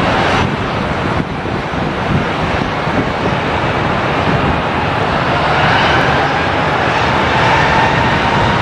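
Airbus A320's jet engines at takeoff power as it starts its takeoff roll on a wet runway: a loud, steady rush that grows slightly louder, with a faint engine whine coming in during the later seconds.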